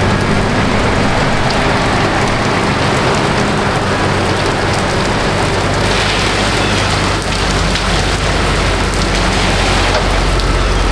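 Heavy rain pouring steadily onto wet pavement, with a vehicle engine humming underneath that grows louder near the end as the vehicle comes close.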